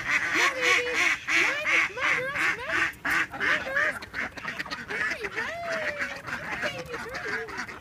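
A flock of domestic ducks quacking, many overlapping quacks at first, then fewer and more spaced out after about four seconds, with one longer drawn-out call near the end.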